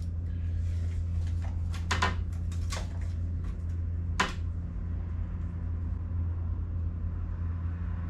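A few knocks and clicks of hand tools being handled against wooden wall studs while measuring and marking, the sharpest about four seconds in, over a steady low hum.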